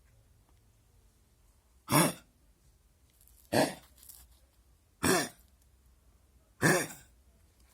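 Dog coughing four times, about a second and a half apart, each a short, sharp hack.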